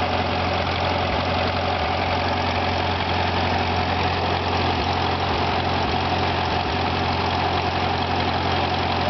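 Old Oliver tractor engine running steadily, powering a belt-driven shingle mill.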